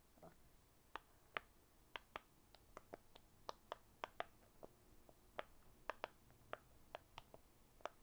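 Rainbow silicone pop-it fidget toy shaped like an Among Us crewmate, its bubbles pressed one after another. Each press gives a sharp little pop, about three a second at uneven spacing, starting about a second in.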